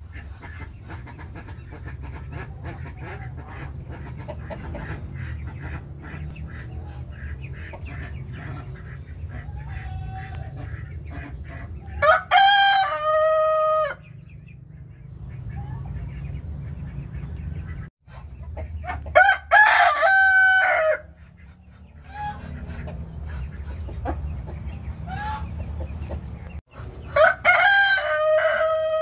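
A rooster crowing three times, each crow about two seconds long and spaced roughly seven seconds apart. Between the crows are a few soft clucks over a low steady rumble.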